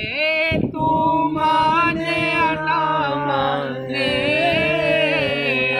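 A man singing an unaccompanied devotional song in praise of Husayn, drawing out long held, wavering notes with no clear words.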